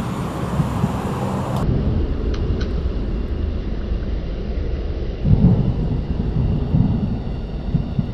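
Low rumbling outdoor noise that swells and falls in gusts, changing abruptly about a second and a half in.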